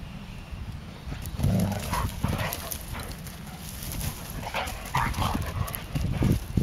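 Standard poodles digging in loose dirt with their forepaws, with scraping and dog sounds in bursts about a second and a half in and again around five seconds, over a steady low rumble.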